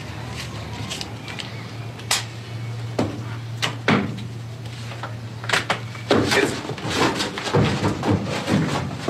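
Sharp knocks and clatters of a tool working and objects being handled in a straw-strewn stall, over a low steady hum. About six seconds in, the hum drops away and a quick run of scuffling and hurried movement follows as a boy breaks away and runs.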